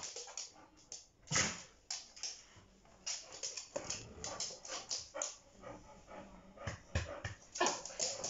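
Two nine-week-old puppies playing rough, giving short whimpers and yips among quick scuffles on a hard laminate floor.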